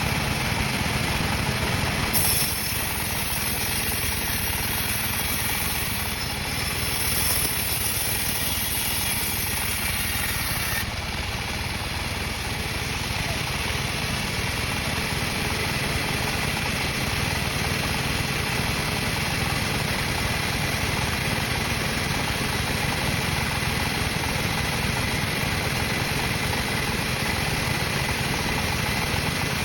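Sawmill machinery running steadily with an engine-like drone. A high hiss is added from about two seconds in until about eleven seconds in.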